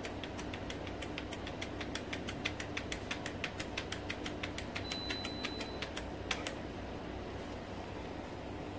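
Computer keyboard keys being pressed over and over in quick succession, about five clicks a second, stopping about six seconds in. A steady low hum runs underneath.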